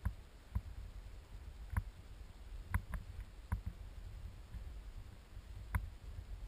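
Wind buffeting the camera's microphone as a low rumble, with scattered faint clicks and knocks from the handheld camera pole being turned.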